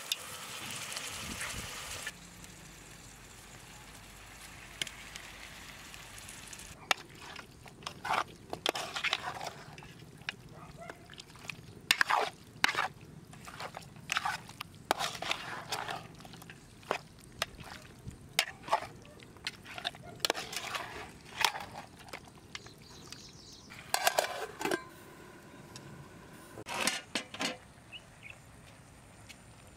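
Raw mutton pieces being stirred and turned with a plastic spatula in an aluminium pot, in a string of irregular short scraping strokes.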